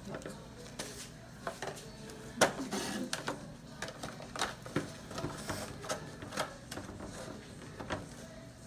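Irregular small clicks and taps of a plastic toy dinosaur being handled and set on a wooden tabletop, with one sharper knock about two and a half seconds in.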